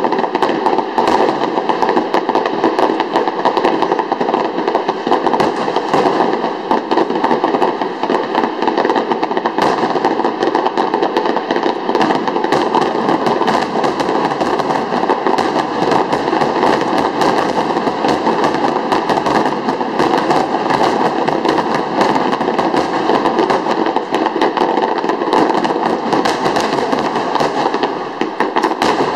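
Starmine fireworks barrage: a rapid, continuous stream of shell bursts and dense crackling, many strikes overlapping, that thins and fades near the end.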